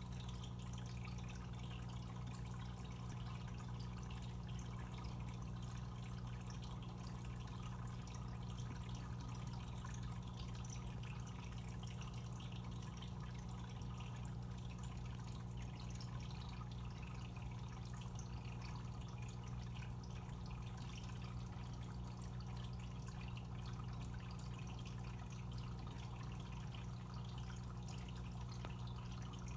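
Aquarium equipment running steadily: water bubbling and trickling over a constant low pump hum.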